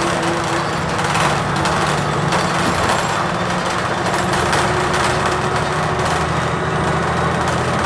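Cummins Westport ISL-G natural-gas engine of a Blue Bird TX4 CNG bus running steadily, heard from inside the cabin, with road noise and many small clicks and rattles over it.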